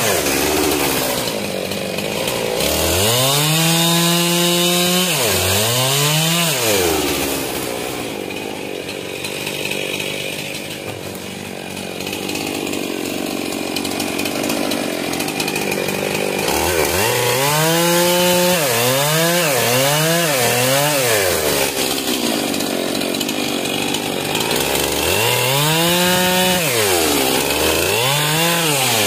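Stihl MS 441 C two-stroke chainsaw running hard, revving up and dropping back to idle several times, with a quick run of throttle blips just past the middle and two more revs near the end. In between there is a longer steady stretch with the engine under load, cutting through wood.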